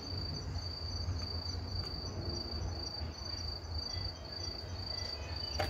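Crickets trilling steadily, a high continuous trill broken into pulses about twice a second, over a low background rumble. A single sharp click near the end.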